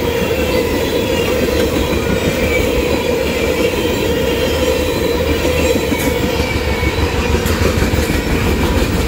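CSX freight train's cars rolling past: a steady, loud rumble of steel wheels on the rails.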